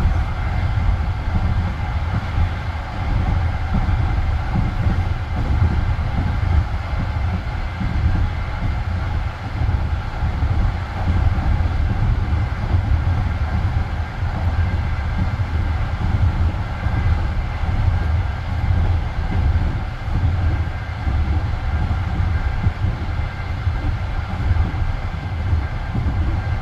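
Passenger train carriage running along the line: a steady, heavy rumble of wheels on rail, with faint steady tones above it.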